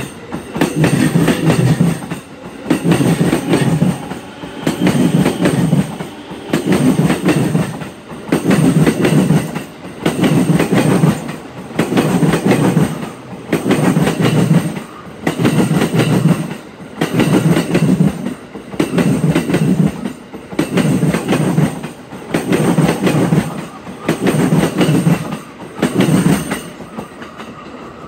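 JR East E233-series electric train rolling past at a steady pace, its wheels clattering over the rail joints in a loud burst about every two seconds as each pair of bogies goes by. The clatter stops shortly before the end as the last car clears.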